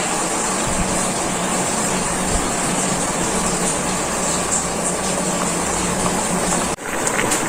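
A pot of soup boiling on an electric hotplate: a steady bubbling hiss over a constant low hum. The sound breaks off for a moment near the end.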